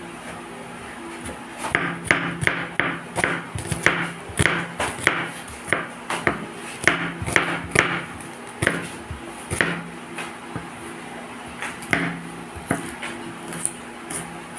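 Chef's knife slicing and dicing a red onion on a bamboo cutting board: irregular sharp knocks of the blade hitting the wood, about two a second, growing sparser after about ten seconds.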